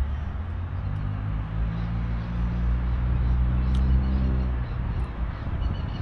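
A motor vehicle's engine running nearby, a low hum steady in pitch that dies away after about four and a half seconds, over steady outdoor background noise. A few faint bird chirps come near the end.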